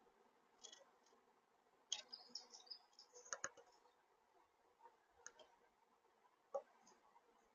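Faint, scattered clicks and taps of a bird at a seed feeder, heard through the feeder camera's microphone, with a quick cluster of high clicks and chips about two to three seconds in.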